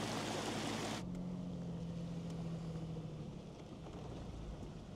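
A small mountain creek rushing over rocks, cutting off about a second in. Then a Jeep Wrangler's engine running with a steady low hum, which fades after a few seconds, over fainter flowing water.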